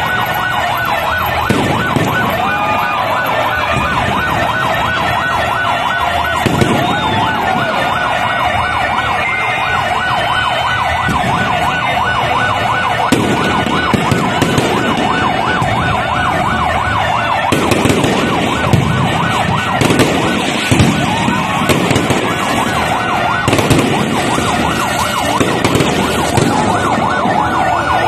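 Fireworks going off non-stop: many whistling fireworks rising and falling in pitch over dense crackling, with sharp bangs now and then, more often in the second half.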